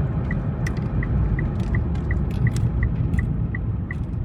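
A car running, heard from inside the cabin: a steady low rumble, with a short, high electronic tick from the car repeating evenly about three times a second.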